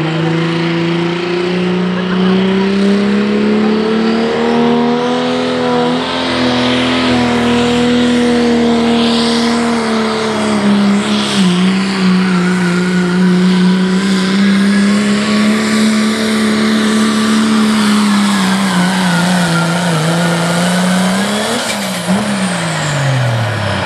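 Turbocharged diesel four-wheel-drive pickup engine at full throttle, pulling a weight-transfer sled. Its pitch climbs over the first few seconds and holds high with a turbo whine, then sags near the end, flares up briefly and falls away as the pull ends.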